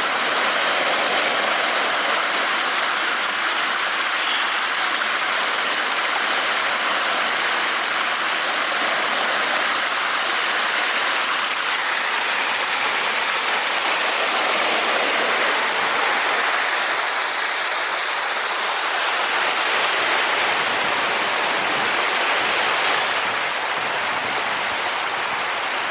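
Steady rushing of flowing water: a loud, even hiss that does not rise and fall.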